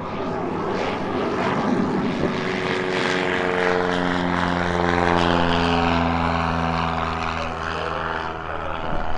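Jet noise from Blue Angels McDonnell Douglas F/A-18 Hornets flying overhead: a loud, sustained roar. About two seconds in, a deep hum of several steady tones rises out of it, drifts slightly lower in pitch, and fades near the end.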